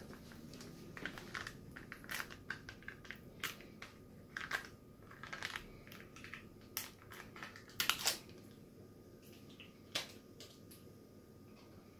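Foil wrapper of a chicken stock cube crinkling as it is peeled open by hand, in faint, irregular crackles and clicks, with the cube crumbled into the pot near the end.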